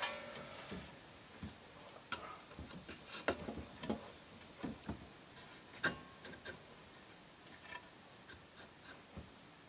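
Faint, irregular clicks and light knocks of parts being handled as a jukebox's record carousel is worked up onto its shaft.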